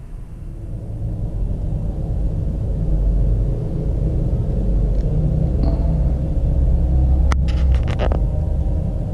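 A deep rumble that builds over the first few seconds, holds, and eases near the end, with a sharp click about seven seconds in.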